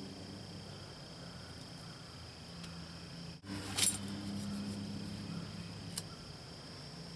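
Steady high-pitched insect chirring in the background, with a short loud rustle about halfway through and a single click about a second before the end.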